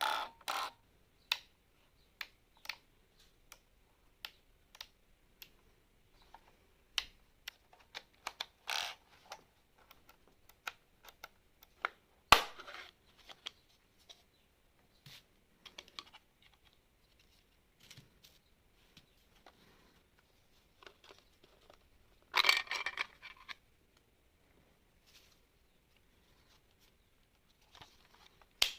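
Hands handling a radio controller and its packaging during unboxing: scattered light clicks and taps, with two short rustling scrapes, one about twelve seconds in and a louder one about twenty-two seconds in.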